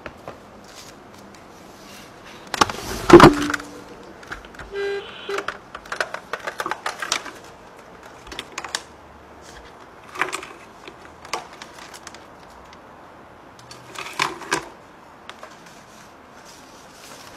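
Microphone handling noise: scattered clicks, knocks and rattles as a microphone is handled and reconnected, with the loudest thump about three seconds in.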